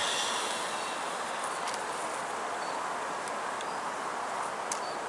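Honeybees buzzing steadily from an open hive. A short scraping rustle at the start and a couple of light clicks come as a brood frame is worked out of the box.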